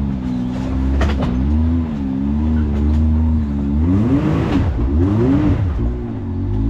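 Side-by-side UTV engine running under changing throttle, its pitch wavering up and down, with a bigger rev rising and falling about four seconds in. A couple of short knocks sound about a second in.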